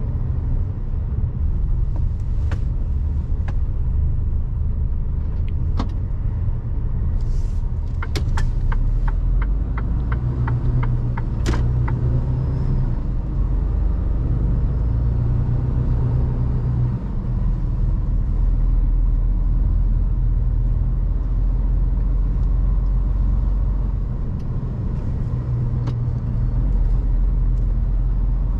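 Mercedes Actros truck on the move, a steady low rumble. About eight seconds in, a quick run of sharp ticks, about four a second, lasts a few seconds.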